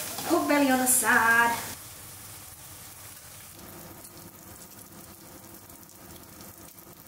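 Vegetables frying in a pan, a faint steady sizzle, with a woman's voice briefly over it for about the first second and a half.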